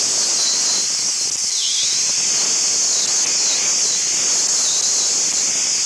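Dustless (wet abrasive) blasting nozzle spraying a steady, loud, high hiss of air, water and grit against a cast aluminium valve cover, the hiss wavering slightly in tone.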